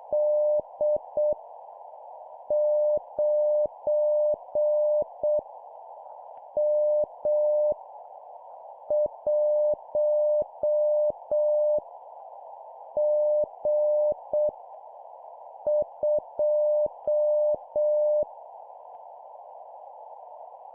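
Morse code (CW) at 7 words per minute: a single beep tone switched on and off in dots and dashes, spelling random letters and numbers for copy practice, with a steady hiss behind it. About six characters are sent, with pauses between them; the beeping stops about 18 seconds in and only the hiss continues.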